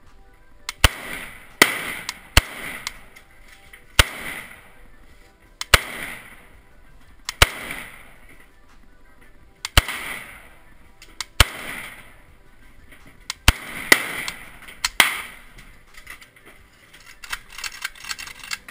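Rifle fired in slow, deliberate single shots, about a dozen, one every second or two. Each is a sharp crack with a short ringing echo after it. A quick run of quieter clicks comes near the end.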